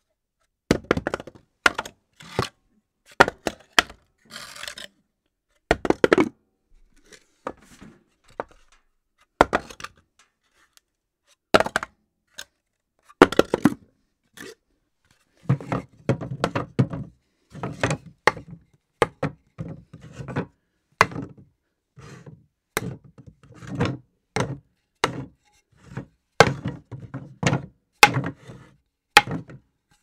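Objects dropped on a floor one after another, each landing as a sharp impact with a short clatter. The drops are spaced out at first, then from about halfway through come faster, with more low thud in them.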